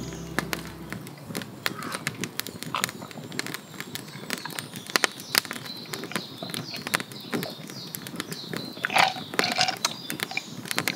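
Wood campfire crackling, with frequent sharp pops.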